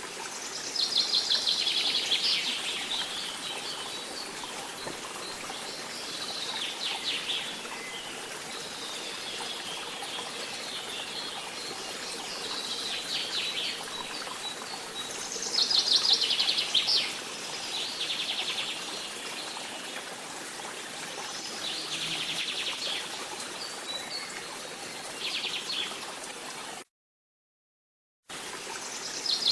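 Tropical forest ambience: birds singing repeated fast trills every few seconds over a steady forest background hiss. The sound cuts out completely for about a second and a half near the end, then resumes.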